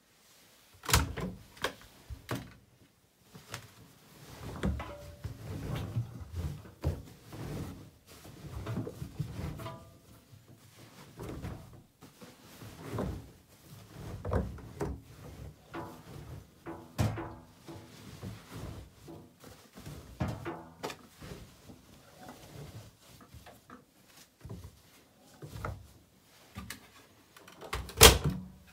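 Handling noise at an AEG Lavamat 1400 washing machine: irregular knocks, clunks and clicks, with a sharp knock about a second in and the loudest one near the end.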